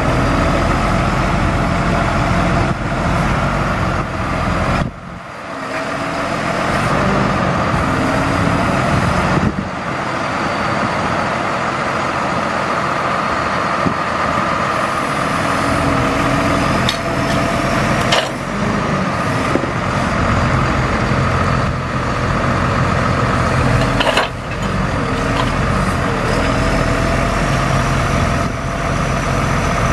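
A truck engine running to drive the National N80 crane's hydraulics while the boom is worked and lowered. There is a steady whine whose pitch drifts, with a few sharp clicks in the second half.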